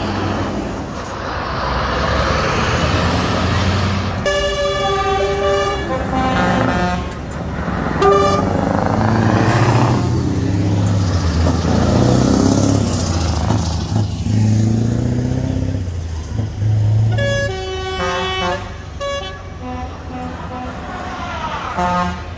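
Heavy truck engine pulling past, its sound swelling in the middle as the Scania tractor unit goes by. Truck air horns sound several blasts: about four seconds in, again around eight seconds, and twice more in the last six seconds.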